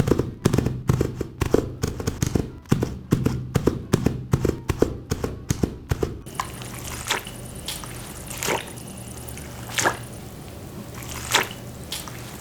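A fast run of loud knocks over a steady low hum for about six seconds, then sparse, sharp drips and trickling water.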